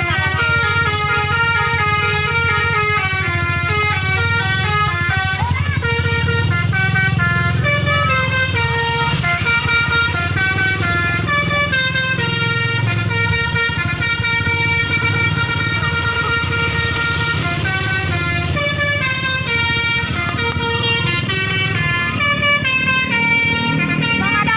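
A telolet basuri bus horn, a multi-trumpet musical horn, playing a long melody of stepped, changing notes without a break. A low steady hum runs underneath.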